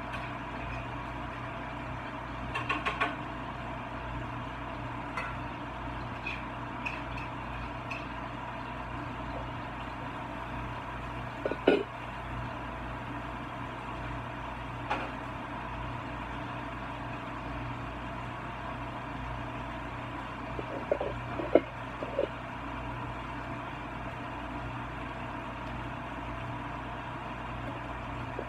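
Steady electrical hum of a kitchen vent fan in an over-the-range microwave. A few light clicks and knocks from handling a packet and cookware break in, the sharpest about twelve seconds in and again around twenty-one seconds.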